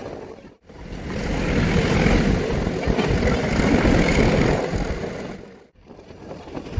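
Steady rumbling and rushing noise of a vehicle in motion. It cuts out briefly about half a second in and again near the end.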